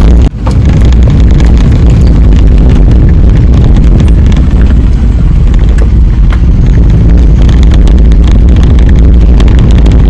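Vehicle driving along a forest track: a loud, steady rumble of engine and road noise with wind buffeting the microphone. The sound briefly drops out about a third of a second in.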